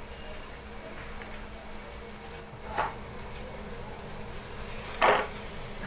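Coconut oil sizzling steadily under a stuffed plantain shallow-frying in a non-stick pan. A wooden spatula and fork work the plantain, with two brief knocks against the pan, the second, about five seconds in, the louder.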